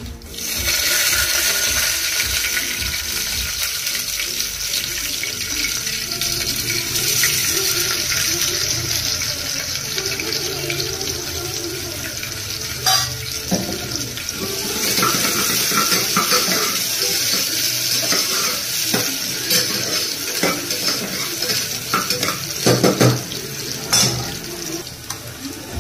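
Sliced onions and whole spices sizzling steadily in hot oil in a pressure-cooker pot. The sizzle starts suddenly about half a second in, and a spoon stirring the onions clicks and scrapes against the pot now and then.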